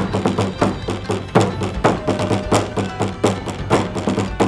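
Thai klong that barrel drum struck with two wooden sticks in a fast, steady run of loud strokes, about three a second, the deep boom carrying on under the hits.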